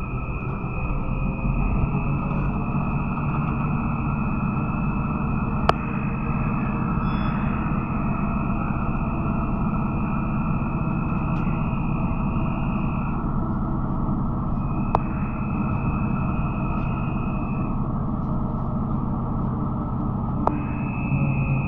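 Cabin noise of a Trolza-5275.03 "Optima" trolleybus on the move: a steady rumble of running gear and road, with a high electric whine from the traction drive that cuts out twice and comes back. Three sharp clicks sound through it.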